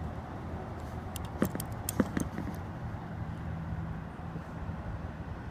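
A few light clicks and clinks from small metal and plastic door-latch parts being handled, over a steady low hum.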